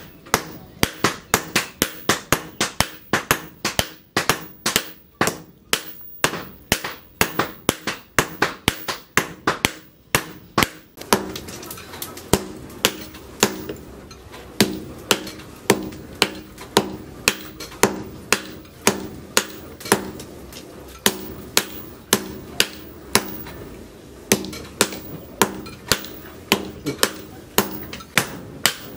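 Hand hammer forging red-hot leaf-spring steel on a steel post anvil: a steady run of sharp metallic blows, about two to three a second. From about a third of the way in, a low steady hum runs under the strikes.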